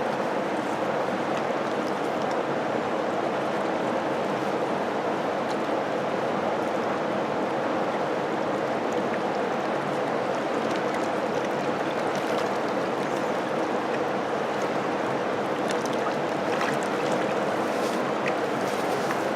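Steady rush of river water, an even hiss that holds the same level throughout.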